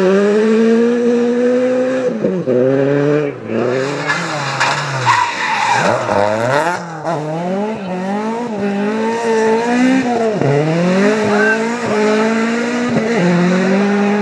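Rally car engines accelerating hard on a gravel stage, revving up through the gears with repeated sharp drops in pitch at each upshift. A rush of tyre noise comes in around the middle.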